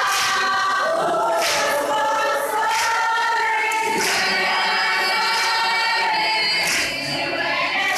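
A large crowd singing together in chorus, many voices holding long notes in harmony.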